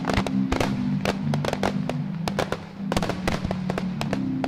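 Aerial fireworks going off in quick succession, a dense run of bangs and crackles that thins briefly a little before three seconds in, with music playing underneath.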